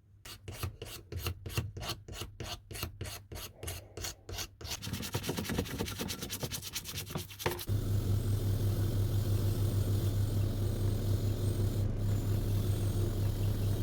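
Sandpaper rubbing back and forth on a wooden hammer handle, about four strokes a second, then faster. About seven and a half seconds in, a power tool starts and runs steadily with a loud low hum.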